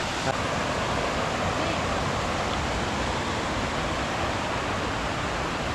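Steady rushing of a waterfall cascading over rocks, with a brief tap about a third of a second in.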